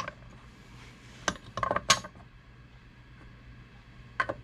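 Small metal objects clinking and tapping against each other: a few sharp, brief clinks about a second in, a quick cluster just before the two-second mark, and two more near the end.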